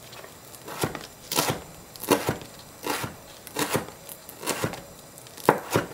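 Kitchen knife chopping green onions on a plastic cutting board: irregular sharp knocks, single or in quick pairs, about a dozen in all.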